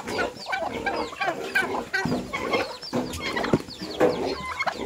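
A flock of chickens clucking, many short calls overlapping one another.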